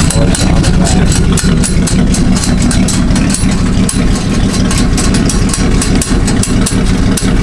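A motor running steadily and loudly, with a low hum and an even, fast pulsing.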